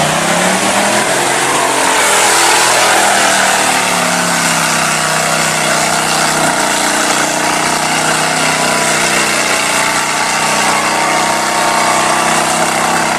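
Lifted mud truck's engine revving hard as it launches into the mud pit, climbing in pitch over the first couple of seconds, then held at high, steady revs as it ploughs through.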